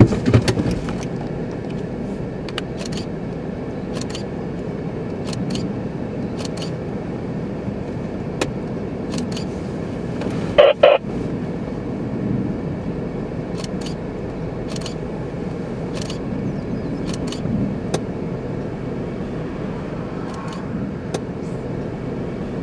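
Steady low rumble of a stationary car, heard from inside the cabin with the engine running, under scattered light ticks. There is a knock at the very start, and about eleven seconds in a short, loud pitched sound cuts in twice.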